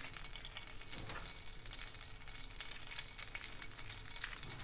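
Butter sizzling in a pan on the stove: a steady, crackling hiss.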